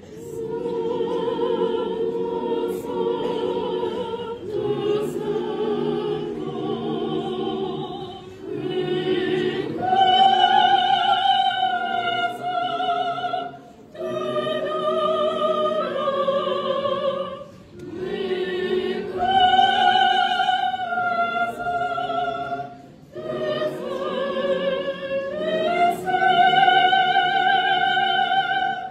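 A church choir singing unaccompanied in long held phrases with a wavering vibrato, pausing briefly for breath between phrases and rising to louder, higher passages three times.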